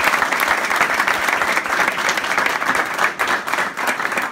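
A roomful of people applauding: dense, steady clapping from many hands at once.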